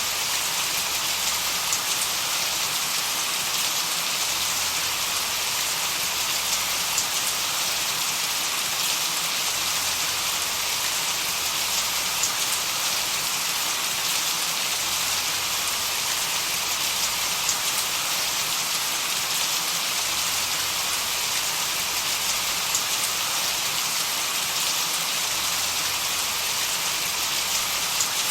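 Steady, even hiss like rain, brightest in the upper range, with faint scattered ticks and no change throughout: a continuous noise track for tinnitus masking.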